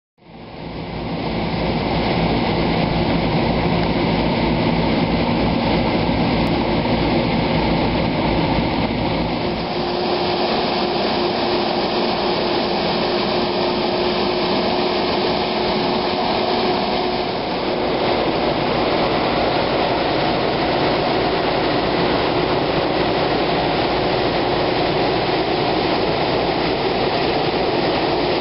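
Street-sweeper truck doing high-pressure road washing: its engine runs steadily under a loud, even hiss of the water spray and machinery. About a third of the way in the low rumble eases and a steady hum comes in.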